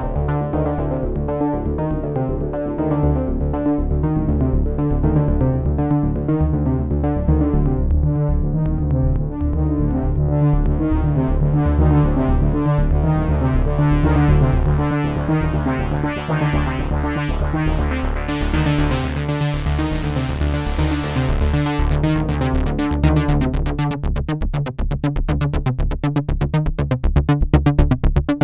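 Sequential Trigon 6 analog polyphonic synthesizer playing its 'Down n Dirty' preset: a bass-heavy synth part of changing notes. About two-thirds of the way through the sound brightens into fast repeated pulses.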